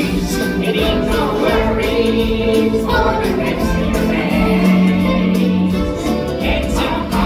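Stage-show music: a choir of voices singing long held notes over instrumental backing.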